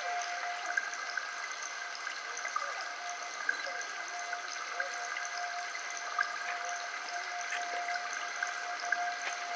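Several steady high tones held together without change, over an even hiss like running water.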